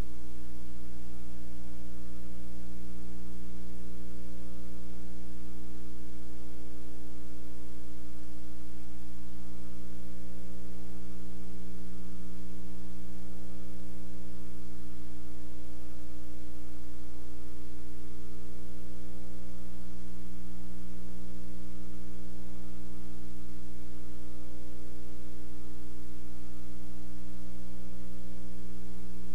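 Steady electrical mains hum with a stack of buzzy overtones and a faint hiss, on an audio track that carries no programme.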